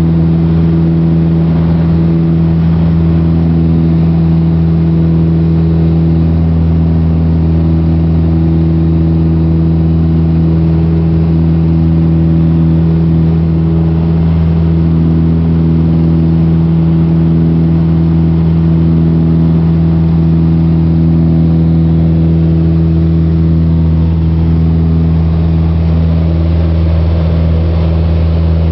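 Piper PA-28-181's four-cylinder Lycoming O-360 engine and propeller at takeoff climb power, heard inside the cabin as a loud, steady, deep drone.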